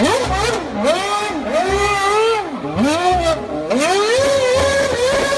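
Red Bull Formula 1 car's engine revving hard while it spins donuts, its pitch rising and falling over and over, roughly once or twice a second.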